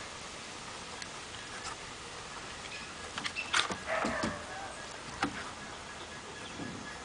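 Kuvasz puppy and older Kuvasz playing: a quiet stretch, then a short run of mouthing clicks and a brief dog vocal sound about halfway through, and one more click a little later.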